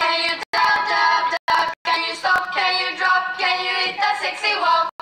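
A song track with a girl's singing voice playing as the soundtrack for a musical.ly lip-sync clip, broken by several sudden brief dropouts to silence.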